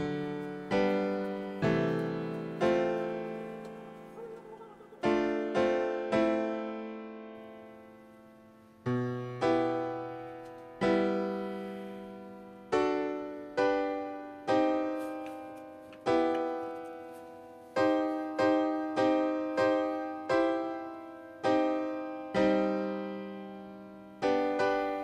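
Slow piano music: chords struck one after another, each left to ring and fade before the next, a little quicker in the second half.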